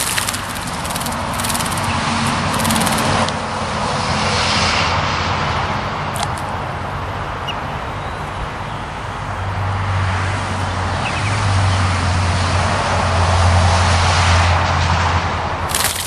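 Northern cardinal bathing in a concrete birdbath, splashing water in quick flurries during the first three seconds and again at the very end. Under it runs the steady rush of passing road traffic, with a low hum swelling in the second half.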